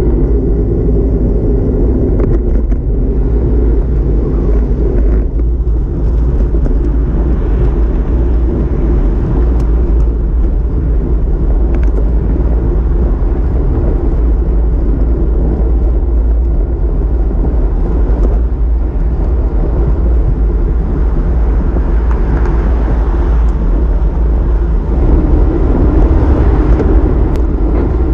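Wind buffeting the microphone of a handlebar-mounted camera on a road bike riding along asphalt: a steady, loud low rumble with a few faint clicks, growing louder near the end.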